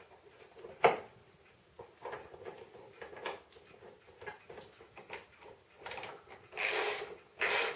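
Hand tools working on a snow blower's auger assembly: scattered metal clicks and a sharp knock about a second in, then from about six and a half seconds a run of rasping strokes, roughly one every 0.7 seconds, as the last fastening is finished.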